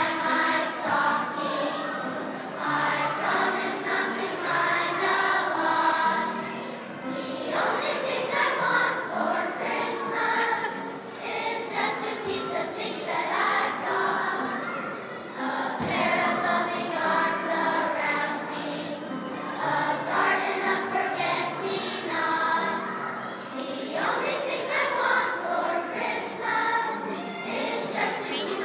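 Children's choir singing with upright piano accompaniment, in phrases broken by short pauses about every eight seconds.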